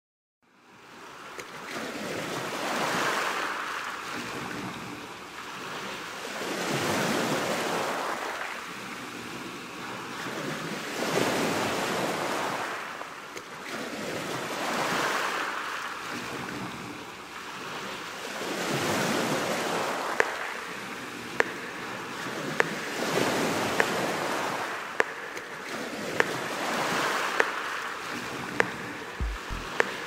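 Black Sea surf breaking on a sandy shore, fading in at the start, then swelling and ebbing roughly every four seconds. In the last third a faint, sharp click repeats about once a second.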